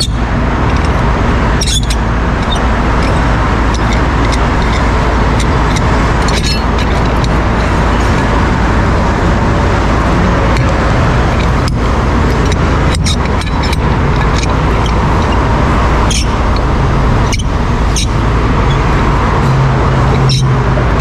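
Heavy 75-ton rotator wrecker's diesel engine running steadily to drive the hydraulics while its boom control levers are worked, with scattered sharp clicks and knocks. A low hum comes in near the end.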